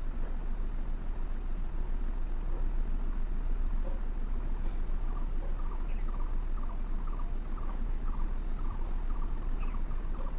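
Steady low background hum. In the second half, faint short chirps come about twice a second, and a brief hiss comes about eight seconds in; there is no sneeze.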